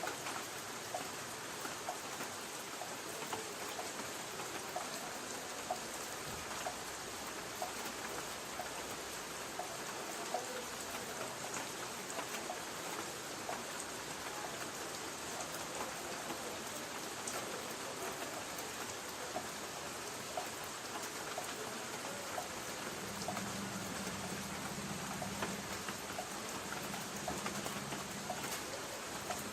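Light rain pattering on a tin roof: a steady hiss of rain with many small, scattered drop ticks. A faint low hum comes in near the end.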